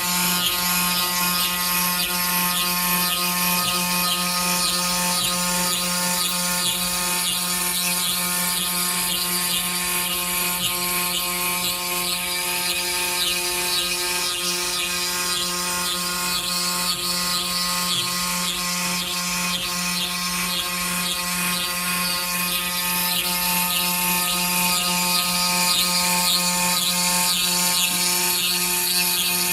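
Five-axis CNC router (AKM1325-5A) running steadily while engraving stone: a constant spindle whine with cutting noise, holding an even level throughout.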